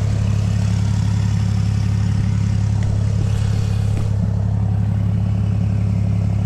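An engine idling steadily with a constant low hum, with a couple of faint clicks about three and four seconds in.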